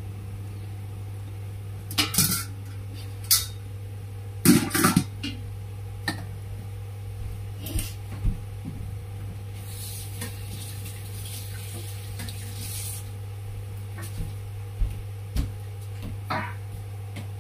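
Metal clinks and knocks of a wok and its stainless steel lid as clams boil: a handful of scattered strikes, the loudest about four and a half seconds in, over a steady low hum, with a soft hiss for a few seconds around the middle.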